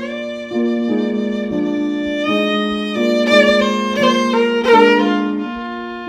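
Amplified fiddle played with a bow: a melody that slides between notes over a steady, repeating lower figure.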